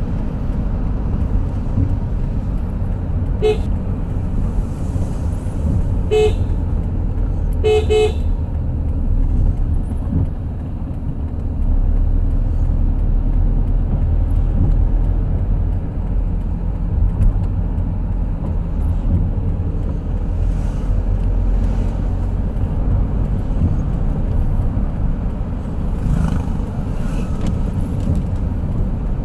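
Road vehicle running with a steady low rumble of engine and road noise. A horn gives short toots about three and a half and six seconds in, then a quick double toot about eight seconds in.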